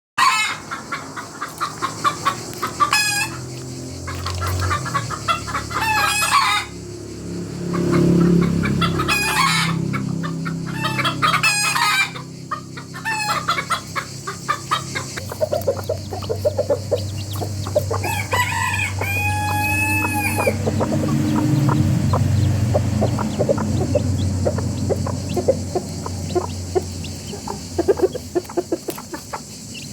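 A group of chickens, roosters and hens, calling together: loud short squawks every two to three seconds at first, then dense rapid clucking, with a drawn-out rooster crow about two-thirds of the way through.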